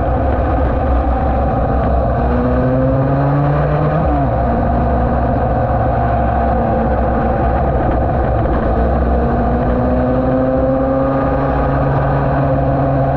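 Yamaha TD1B two-stroke twin road racer running at speed on a track. The engine note climbs, drops sharply about four seconds in, then climbs slowly again near the end, over heavy low wind rumble on the microphone.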